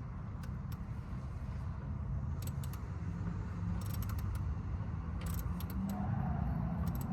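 Hand socket ratchet clicking in short runs of quick ticks as it is worked back and forth on a stuck bolt, its direction set the wrong way round. A steady low rumble runs underneath.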